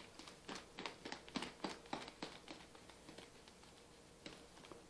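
Heavy whipping cream and cherry Jell-O sloshing and knocking inside a lidded plastic container shaken hard by hand, about three or four strokes a second. The shaking pauses for about a second and a half after the middle and picks up again near the end. The cream is still thin enough to be heard sloshing, not yet whipped thick.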